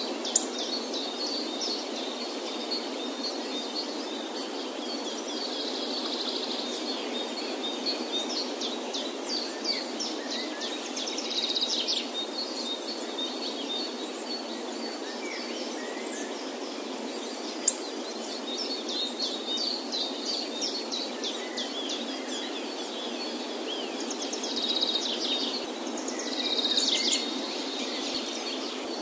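Birds chirping and trilling over a steady rushing background noise, with two sharp clicks, one just after the start and one past the middle.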